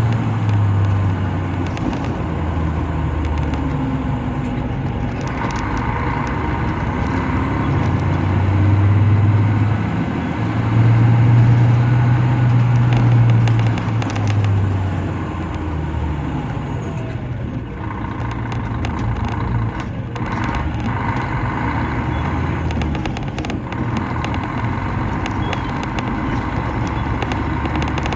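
Mercedes-Benz O500-RS coach's diesel engine running while the coach is driven, heard from inside the coach; the engine note swells and drops with throttle and gear changes, loudest in the middle, then runs steadier with a few light rattles.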